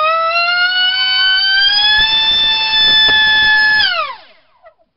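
2948 4800kv brushless inrunner motor spinning a Gemfan 4045 nylon prop on a thrust stand: a loud high-pitched whine that climbs in pitch as the throttle goes up, holds steady at full power, then drops quickly as the motor is shut off about four seconds in.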